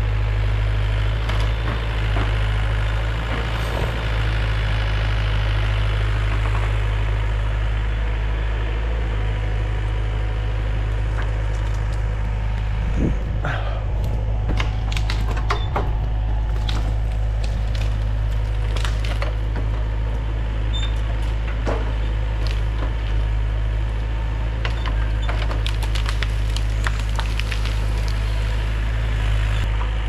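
Forestry harvester's diesel engine running steadily under load. From about halfway through, many sharp cracks and snaps of wood break in over it as a tree is worked.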